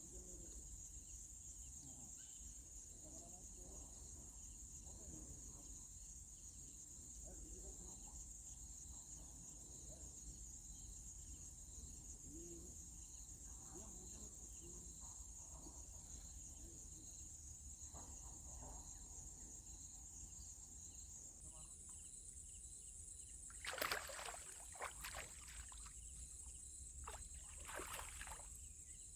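Insects chirring steadily in a high, continuous drone. Several sharp clicks or knocks stand out near the end.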